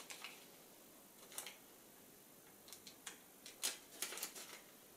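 Faint crinkles and ticks of a protein bar's plastic wrapper being handled: a few scattered short sounds, the loudest a little past three and a half seconds in.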